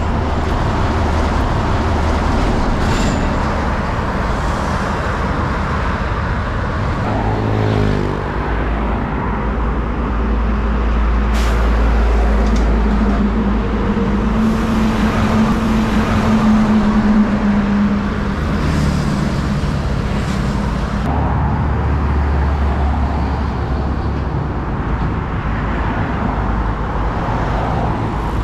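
Road traffic with diesel container semi-trucks passing one after another, their engines droning under steady tyre noise, with cars and motorbikes among them. The engine note shifts as each truck goes by.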